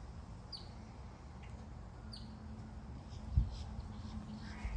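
African grey parrot giving a few short, high squeaks that drop in pitch, over a faint low hum, with one dull thump about three and a half seconds in.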